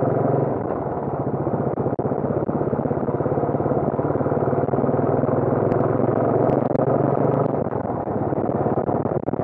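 Royal Enfield Bullet's single-cylinder engine running steadily under way at cruising speed, a rapid even beat of firing pulses; the engine note drops a little about three quarters of the way through.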